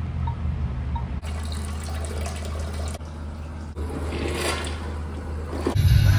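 Toilet flushing, water rushing and swirling down the bowl, over a steady low hum.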